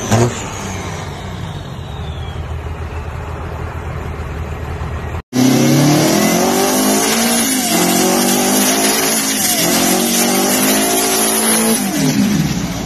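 A lifted diesel pickup pulling away, its engine noise slowly easing. After a sudden cut, a big diesel truck with twin exhaust stacks runs loud, its engine revving up and down several times.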